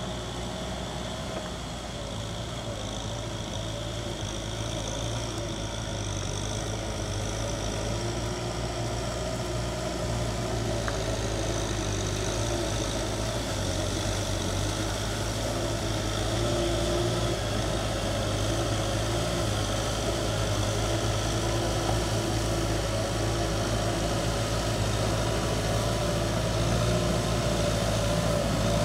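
Kubota M6040S tractor's four-cylinder diesel engine running steadily under load while it tills a flooded rice paddy, with a steady mechanical whine over the engine note. It grows gradually louder.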